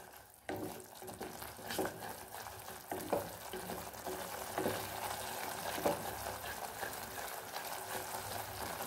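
Tomato-onion masala sizzling in oil in a non-stick pan while a wooden spatula stirs and scrapes through it, about one stroke every second or so, over a steady frying hiss. The puree is being fried down until its raw smell is gone.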